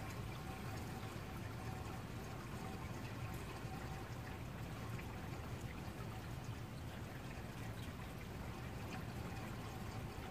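Steady rain falling, with scattered drop hits and a low steady hum underneath.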